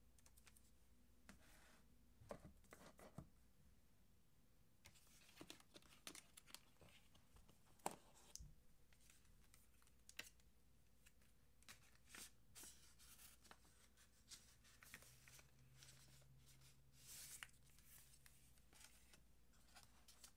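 Quiet handling of a cardboard and paper tablet box: scattered soft taps and clicks with light rustles and scrapes of card sliding against card, and one sharper tap a little before the middle.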